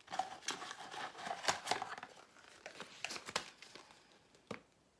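Packaging crinkling and rustling as it is handled, busiest in the first two seconds, with a few more crackles later and one sharp click near the end.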